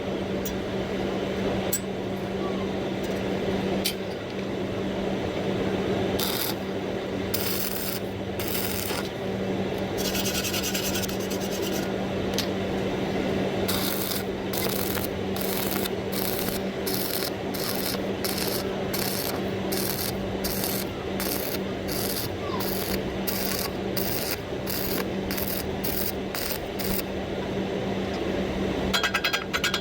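Metalworking: a steady hum under a run of rhythmic rasping strokes, about one to two a second, that start in the middle and stop shortly before the end.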